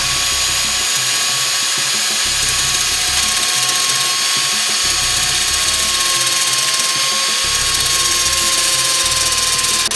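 Angle grinder running and grinding a point onto the end of a steel bicycle front-wheel spindle: a steady high whine over a harsh grinding hiss, starting suddenly at the beginning.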